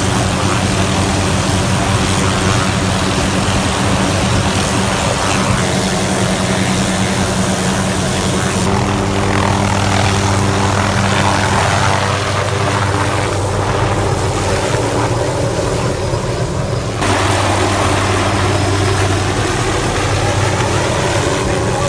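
MD-520MG light helicopter running close by, the steady whine of its turbine engine and the noise of its rotor as it lifts off and flies overhead. The sound changes character about 9 and 17 seconds in.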